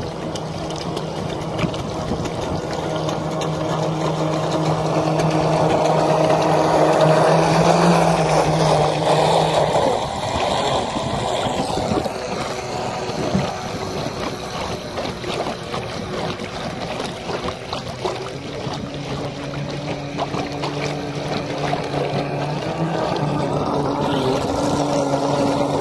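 Small motor of a radio-controlled jet ski running with a steady hum over rushing, splashing water and wind. The hum is strongest in the first ten seconds, drops back, and returns in the last several seconds.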